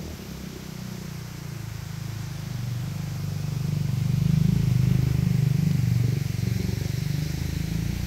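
A motor vehicle's engine rumbling low and close, growing louder to a peak around the middle and easing off near the end.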